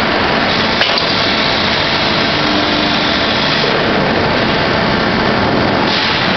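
Steady, loud machinery noise, an even hiss, with a single short click about a second in.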